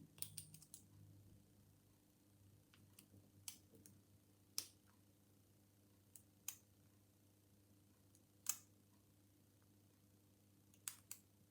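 Faint, scattered little clicks from the pins of a Mul-T-Lock dimple cylinder, one every second or two with a small cluster near the start, as it is raked with a dimple pick under tension and pins set and drop.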